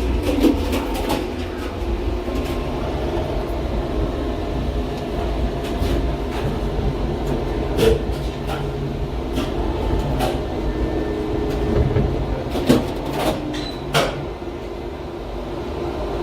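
Gateway Arch tram capsule climbing inside the arch leg, heard from inside the capsule: a steady rumble of the car running on its track, with scattered clicks and clunks as it rattles and levels itself.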